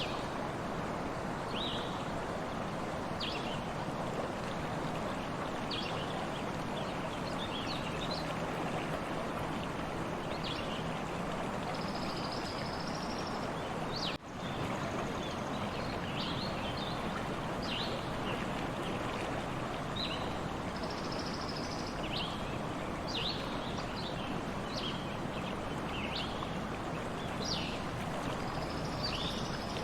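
Stream water flowing steadily, with birds chirping in short, scattered calls throughout. The sound dips out for an instant about halfway through.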